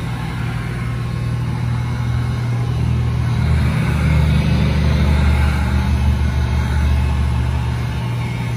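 Electric heat gun blowing steadily while heat-shrinking window tint film on a car's rear glass, a continuous hum with a deeper drone that swells from about three seconds in and eases off near the end.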